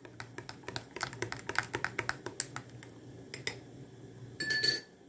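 A spoon clicking and tapping quickly and unevenly against a container while yeast is stirred into warm water. Near the end comes a short, louder scrape with a brief ringing tone.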